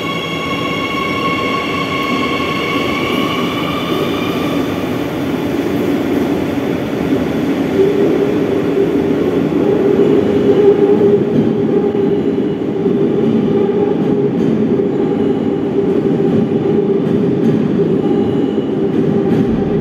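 Madrid Metro Serie 8000 train pulling out of an underground station. The traction motors whine in several high steady tones that fade over the first five seconds, then a steady rumble with a low hum carries on as the train runs off into the tunnel.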